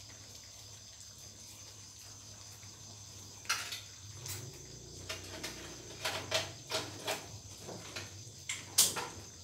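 Scattered light clicks and knocks of kitchen utensils and dishes being handled, starting about three and a half seconds in, over a faint steady hum; the loudest knock comes near the end.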